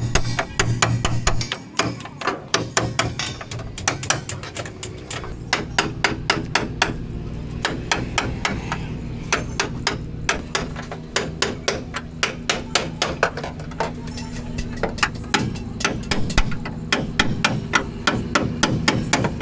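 Hand hammer striking the sheet-steel floor and body panels of a Maruti Omni van: a rapid series of sharp metallic blows, several a second, as the rear body is knocked apart.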